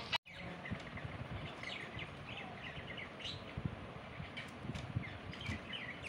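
Budgerigars chirping in short, high, scattered notes, with a busier run of chirps around the middle.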